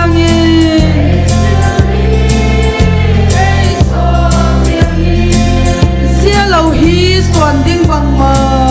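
Congregation singing a hymn together over an instrumental accompaniment, whose heavy bass breaks off briefly about once a second.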